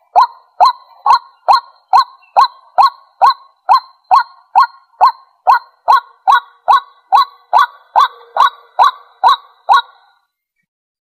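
White-breasted waterhen calling: a steady series of short, loud notes, a little over two a second, that stops about ten seconds in.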